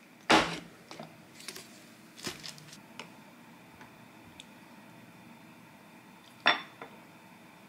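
Snap-lock food container being opened: a loud click as a lid clip is unlatched, then a few lighter clicks and knocks as the lid comes off. Near the end a ladle clinks against a small ceramic bowl with a brief ring.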